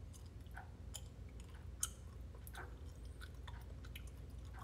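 A person chewing Swedish Fish gummy candy, with faint irregular wet clicks from the mouth.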